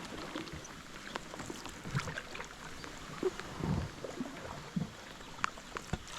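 Canoe on open water: a steady hiss with scattered light knocks and a few soft low thumps against the hull.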